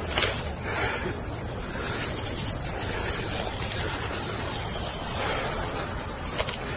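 Steady high-pitched insect chorus, with rustling and footsteps through dry leaf litter and brush.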